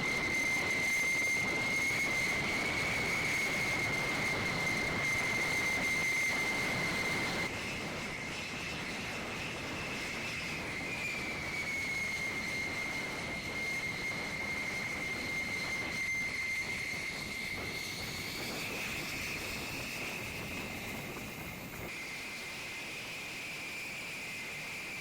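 F-16 jet engine running with a steady high-pitched whine over a rushing noise. The whine dips slightly in pitch now and then, and the sound changes abruptly twice.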